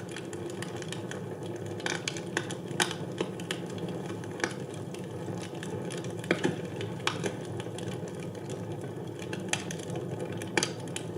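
Wood fire burning in a fireplace: a steady low rush of flames with irregular crackles and pops, a handful of louder snaps scattered through.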